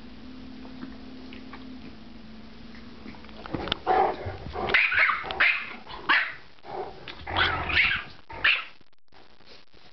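Yorkshire terrier barking in play at a much larger dog: a fast run of short, high barks that starts about three and a half seconds in and stops shortly before the end.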